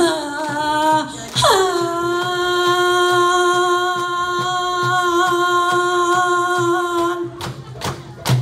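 A woman singing a Kabyle urar festive song into a microphone: a short phrase, then one long steady held note for about six seconds. Near the end the note stops and a few sharp hand claps are heard.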